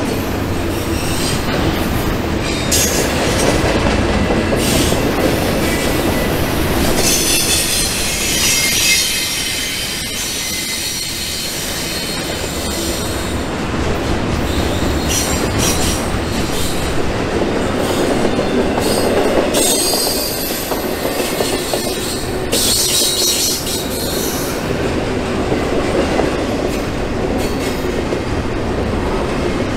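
Freight train running past: steady rolling of wheels on track, with high wheel squeal rising twice.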